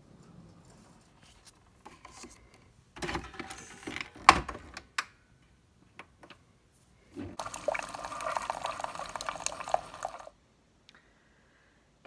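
Keurig single-cup coffee maker dispensing: a few clicks and a sharp knock, then about three seconds of coffee streaming steadily into a mug, stopping suddenly.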